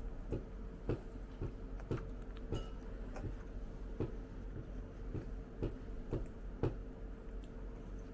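Eating sounds at a meal: a run of irregular light clicks and taps, about two a second, over a faint steady hum.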